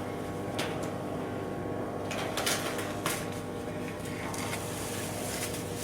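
Steady workshop hum with a few light knocks and clicks of hand work.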